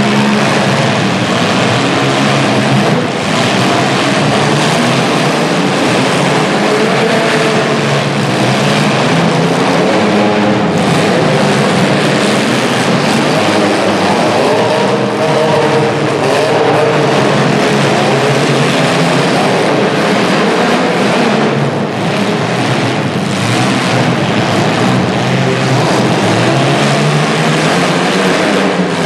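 Several small-car demolition derby engines running and revving at once in a loud, continuous din, their pitches rising and falling as the cars accelerate and back up.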